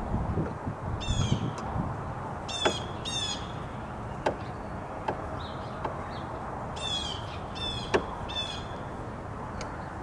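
Birds calling: about six short calls, each sliding down in pitch. There is one about a second in, two around three seconds, and three in quick succession around seven to eight and a half seconds. Scattered sharp clicks of a screwdriver working on a door lock handle fall between the calls, with low wind rumble near the start.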